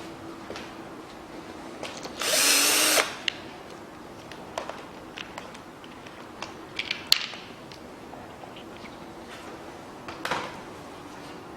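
A handheld power tool runs in one short burst of under a second, about two seconds in. Scattered clicks and clinks of metal tools and parts follow.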